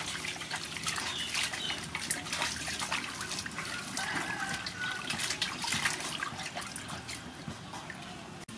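Water splashing and sloshing in an aluminium basin as a peeled bamboo shoot is rubbed and turned by hand to wash it, in irregular splashes.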